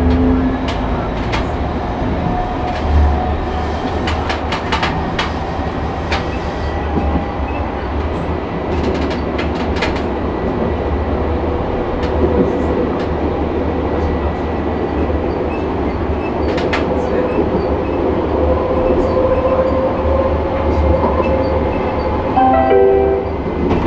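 Nockebybanan light-rail train running along the track, heard from on board: a steady rumble of wheels on rail, scattered clicks over rail joints, and a motor whine that slowly shifts in pitch.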